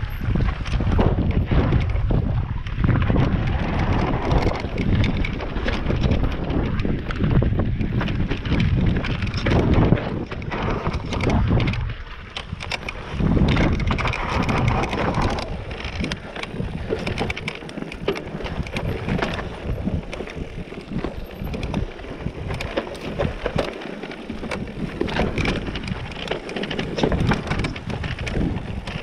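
Mountain bike riding down a rough, rocky dirt trail: wind buffeting the microphone over a steady rumble of tyres on loose stones, with frequent rattles and knocks as the bike goes over rocks and bumps.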